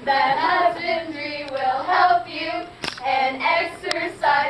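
A group of girls singing a camp action song together in unison, with one sharp click about three seconds in.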